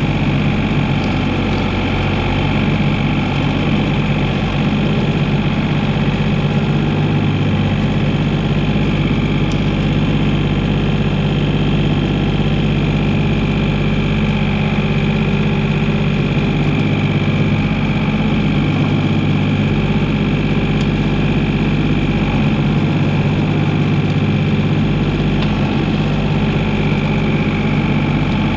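Komatsu PC28 mini excavator's diesel engine running steadily, with slight swells in the engine note as the hydraulics take load.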